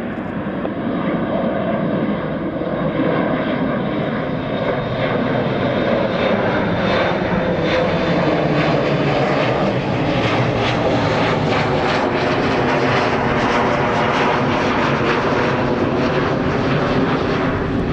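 Jet airliner engines at takeoff power, growing louder over the first few seconds and then holding a steady, loud level.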